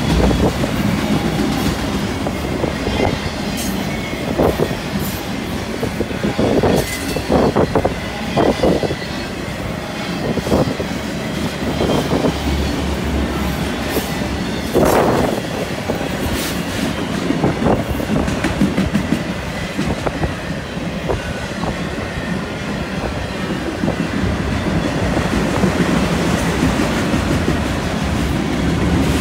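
A freight train of multi-level autorack cars rolling past at close range: a steady rumble of steel wheels on rail, broken by irregular clicks and clanks as the wheels cross joints and the cars jostle, the loudest bang about halfway through.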